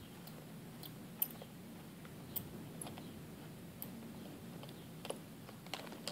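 Small screwdriver and knife blade working a screw in the plastic bottom case of a 2007 white MacBook, giving irregular light clicks and ticks of metal on the screw and case.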